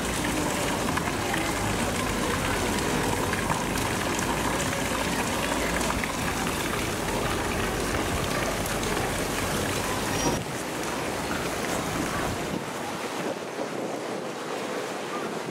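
Strong wind on the microphone: a steady rushing noise with a heavy low rumble that drops away suddenly about ten seconds in.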